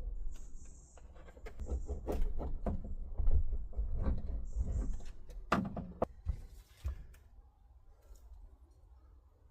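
Irregular knocks, taps and clatter of hands and tools at work, with two brief rustles; a sharper knock about five and a half seconds in, then quieter.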